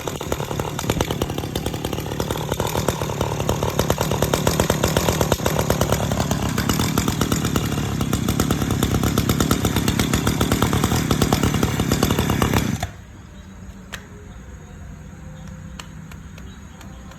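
Small handheld two-stroke engine running hard at high speed, its exhaust note thickening midway. It cuts off abruptly about 13 seconds in.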